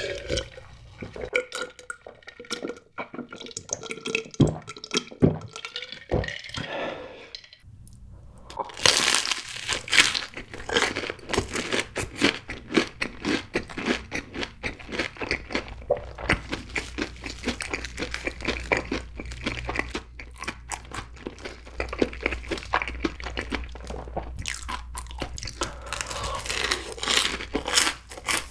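Gulping a drink from a glass bottle for the first several seconds. About eight seconds in comes a loud crunchy bite into a Cheetos-coated corn dog, followed by steady crunchy chewing.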